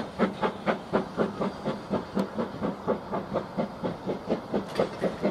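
Steam locomotive exhaust chuffing in an even rhythm, about four to five beats a second, as it pulls a train of coaches away. The beats slowly fade.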